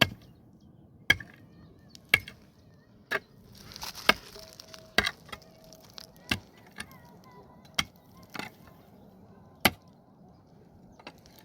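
Wood being chopped with a cutting tool: a series of sharp single blows, roughly one a second, some with longer gaps between them.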